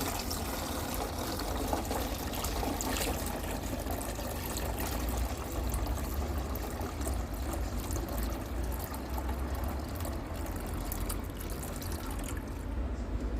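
Water pouring and trickling steadily, thinning out near the end.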